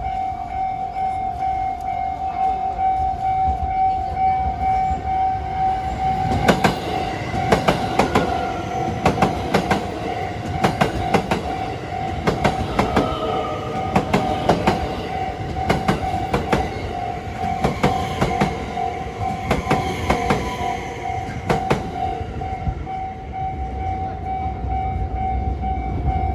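Level crossing warning bell ringing steadily while a Haruka limited express train, 281 series and 271 series electric units coupled, passes over the crossing. Its wheels give a rhythmic clickety-clack over the rail joints from about six seconds in until about twenty-two seconds, and the warning bell carries on after the train has gone.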